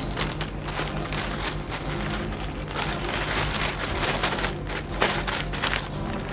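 Clear plastic bag crinkling and rustling as it is handled, in irregular crackles, over the steady low hum of a 2009 Orion VII transit bus standing with its engine running.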